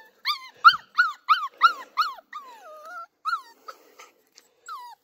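Seven-week-old Sheltie puppy screaming: a rapid run of about six high-pitched yelps, roughly three a second, then a longer falling whine and a few more scattered cries. It is the puppy's distress at being stuck, unable to get through a play tunnel.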